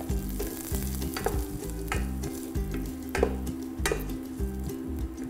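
Minced ginger, garlic and chili padi sizzling in sesame oil on low heat in a stainless steel pot as the aromatics brown, stirred with a wooden spatula that knocks against the pot about four times. Background music plays underneath.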